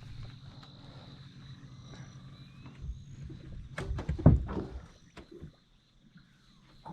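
A steady low hum on a fishing boat, with a cluster of knocks and a heavy thump about four seconds in. The hum stops about a second later.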